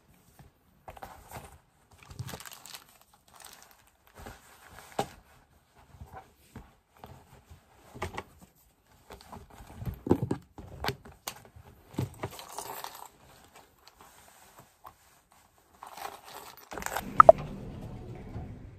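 Scattered rustling, knocks and clicks as belongings are handled and a canvas tote bag is packed and lifted. Near the end a steady low hum sets in, with one sharp, loud click.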